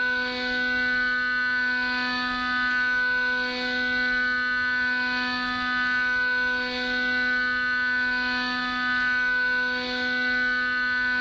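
CNC end mill cutting a round metal workpiece, giving a steady, high-pitched machining whine with a long run of overtones that swells and dips slightly every second or two as the cutter moves around the part.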